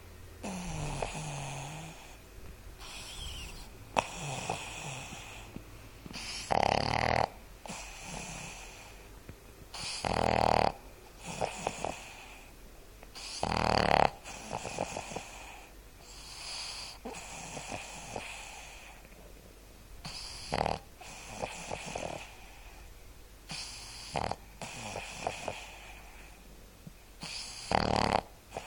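A Boston terrier snoring in its sleep, a short-nosed breed prone to snoring. The snores come in a steady rhythm about every three to four seconds, the loudest in the first half.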